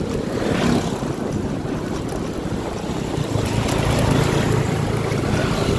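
Motorcycle engine running steadily while riding, with wind rushing over the microphone; the low engine hum grows stronger about halfway through.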